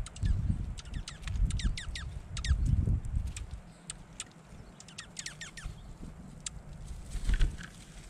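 Small songbirds chirping: many short, high chirps, some in quick runs of falling notes. Low rumbling thumps close to the microphone come and go, loudest in the first three seconds and again near the end.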